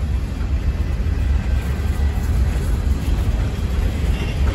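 Empty coal cars of a long freight train rolling past: a steady low rumble of steel wheels on rail.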